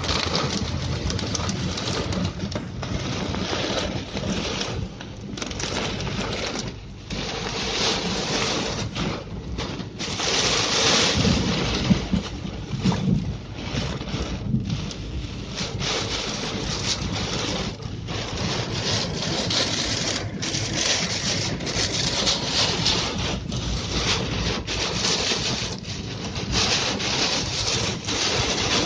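Heavy rain beating on a car's windshield and roof, heard from inside the moving car, with the wipers sweeping across the glass. A loud, steady wash of noise that dips briefly every few seconds.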